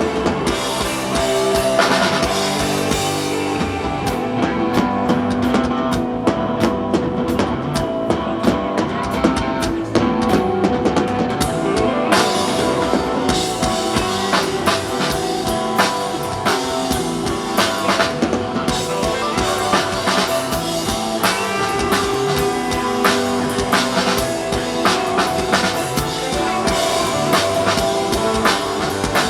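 A live rock band playing instrumental desert rock: electric guitar over a steady drum kit beat.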